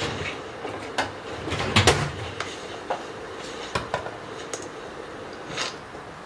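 Kitchen clatter while cooking: a string of irregular knocks and clicks, the loudest pair about two seconds in, over a faint steady hum.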